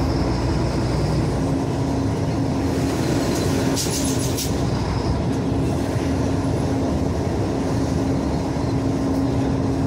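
Steady engine and road noise inside a moving vehicle's cabin, with a constant hum throughout and a short patch of light clicks about four seconds in.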